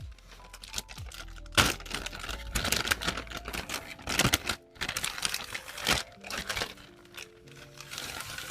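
Hands handling a bag and its packaging for an unboxing: rapid tapping clicks and crinkling, with one louder sharp click about a second and a half in, over soft lo-fi music.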